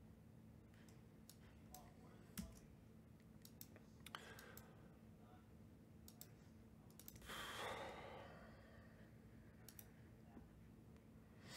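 Faint, irregular computer mouse and keyboard clicks, a few at a time, over a quiet room, with one long sigh about seven seconds in.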